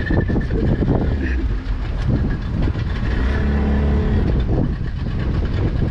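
Fishing boat's engine and net-hauling gear running steadily under load, with a steady mechanical hum swelling about halfway through and scattered knocks and clatter on deck.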